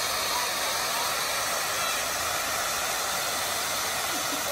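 Ground fountain firework spraying sparks with a steady, even hiss.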